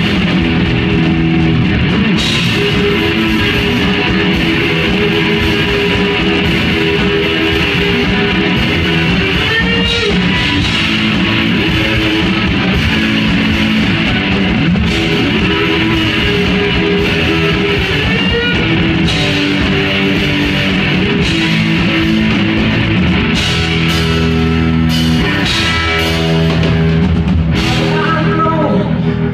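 Loud live rock: an electric guitar played over a drum kit in an instrumental passage with no vocals.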